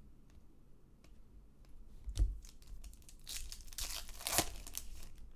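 A trading-card pack wrapper being torn open and crinkled by hand, with a dull thump about two seconds in and the loudest tearing and crackling between about three and four and a half seconds.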